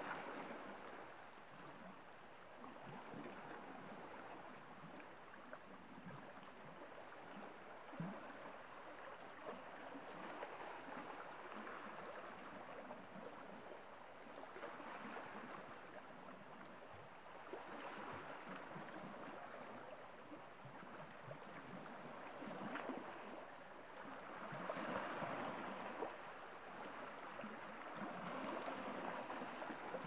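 Small waves of a nearly calm sea lapping and washing against shoreline rocks, swelling and easing every few seconds, with an occasional small splash.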